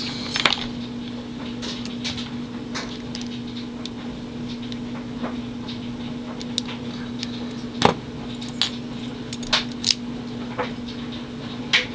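Scattered small metal clicks and taps from a Master Lock Pro Series 6840 brass padlock being taken apart by hand, over a steady low hum.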